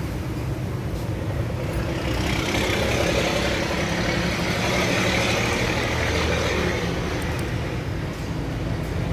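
Motor vehicle engine running steadily, with a hiss that swells up through the middle and fades again.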